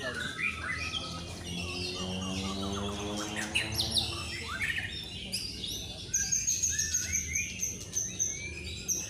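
Several caged white-rumped shamas singing at once, overlapping loud whistled phrases and trills. About six seconds in, a high, rapid, steady trill joins them. A low humming tone runs underneath in the first few seconds.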